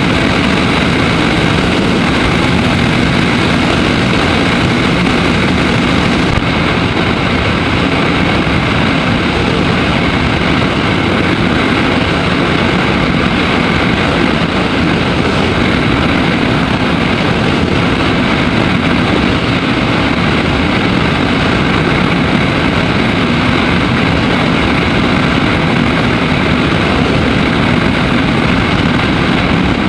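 Daelim Daystar 125cc motorcycle cruising steadily at road speed: a steady engine drone mixed with loud wind rush and road noise on the camera microphone.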